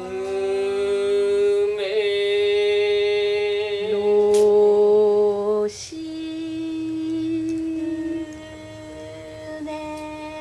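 Several people singing long held vowel tones in turn, improvised, each new voice entering before the last one ends so that two or three notes overlap. A strong entry comes about two seconds in. The sound drops off sharply just before the middle, and softer, lower held tones carry on after it.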